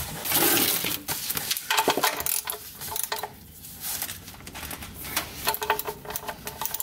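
Socket ratchet clicking in short irregular runs, with light metal clinks, as it is fitted to and worked on the oil drain plug of the engine's oil pan to loosen it for an oil change.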